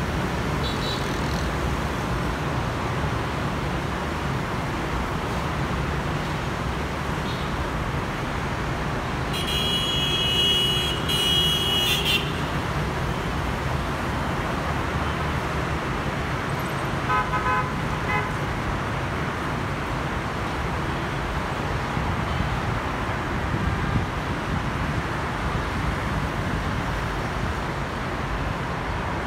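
Steady city road traffic, mostly motorbikes and cars with buses passing. A vehicle horn sounds a long blast, broken once, about ten seconds in, and a shorter, fainter horn sounds around seventeen seconds in.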